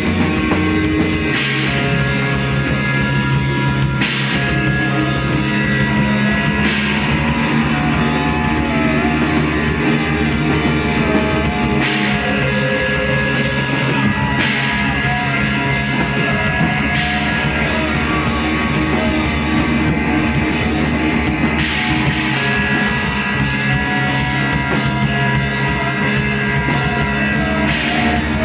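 Rock-style jam over a steady drone tone: drum kit keeps a busy beat while a guitar plays a lead line that slides and bends in pitch above the held drone notes.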